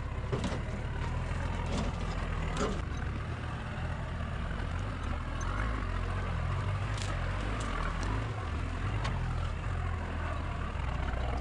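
Nissan GQ Patrol's engine running low and steady as the four-wheel drive crawls through a muddy, rocky creek bed, with a few short knocks.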